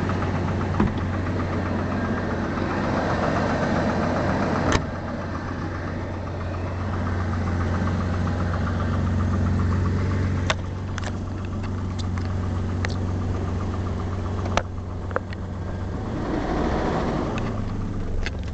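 BMW 750iL V12 engine idling steadily with a rapid knock in time with the engine, a noise whose cause the owner cannot pin down while the engine otherwise runs fine. Several sharp clicks stand out, the first about five seconds in.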